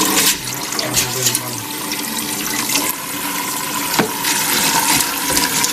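Water running steadily into a bowl, filling it to soak dried pho noodles, with a light knock about four seconds in.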